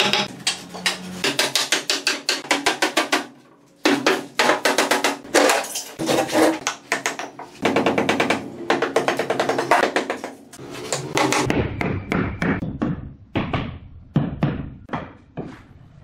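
Hammer rapidly striking wooden formwork boards under a concrete countertop to knock them loose, about five blows a second in long runs. The runs break off briefly about three seconds in. From about eleven seconds on come fewer, scattered knocks as the boards come free.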